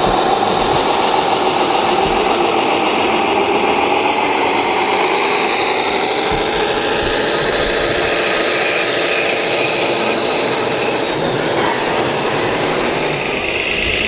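Radio-controlled model tractor's motor and drive whining steadily while it hauls a loaded dump trailer through soil, several pitches shifting up and down as it works, with a higher whine rising briefly near the end.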